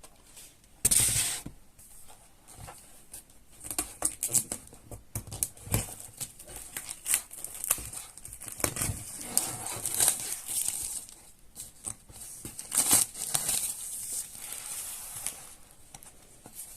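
A parcel being opened by hand: packaging cut and torn open, with rustling and crinkling of paper and plastic as the contents come out. The noises come in irregular short bursts, loudest about a second in and again about two-thirds of the way through.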